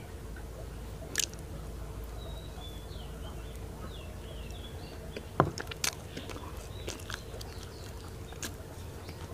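Close-miked biting and chewing of a soft, sticky yellow Thai sweet, with wet mouth and lip smacks. A few sharp clicks stand out, the loudest about five and a half seconds in.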